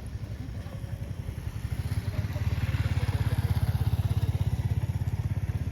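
A motor vehicle's engine running close by with a low, rapid throb, growing louder about two seconds in and easing off near the end, as if passing.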